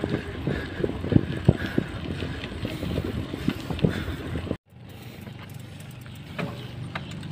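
Handlebar-mounted camera on a mountain bike rolling over a rough concrete road: rattling knocks over wind noise. About four and a half seconds in the sound cuts out, then comes back as a quieter, steadier rumble.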